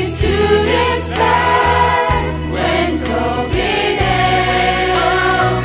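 A song sung by a group: a man singing lead into a microphone with women's voices alongside, over instrumental accompaniment with sustained low notes.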